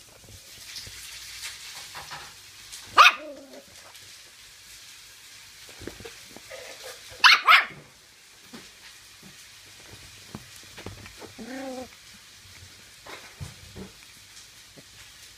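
Toy terrier barking while play-fighting with a hand: one sharp bark about three seconds in, two quick barks about seven seconds in, and a shorter, lower call near twelve seconds, with quieter scuffling in between.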